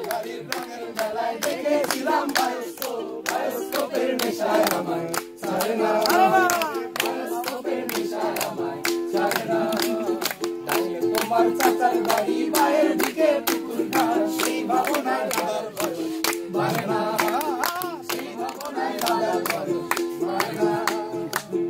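Ukulele strummed in a steady rhythm, with a group of voices singing along.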